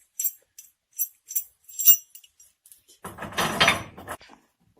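Small metal pieces jingling and clinking in a string of light taps, then a louder rattling clatter about three seconds in.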